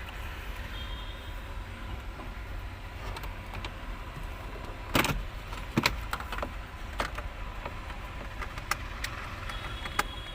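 Inside a Honda Amaze with the turn indicator switched on: a steady low hum with a few sharp clicks at uneven intervals, and no beep. The missing beep is the fault being shown: the indicator, door-open and seatbelt warning beeps have stopped working, a problem tied to the instrument cluster.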